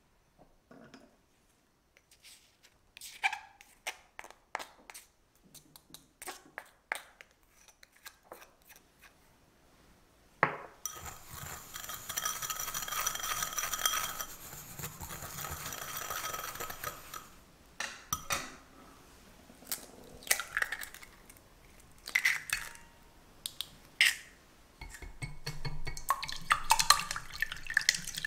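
Glass cups and bowls clinking and tapping as they are set down, then a whisk stirring dry sugar and cornstarch in a glass bowl for several seconds, its wires scraping and rattling against the glass. After a few more sharp clicks, a whisk beats eggs in a stainless steel saucepan near the end.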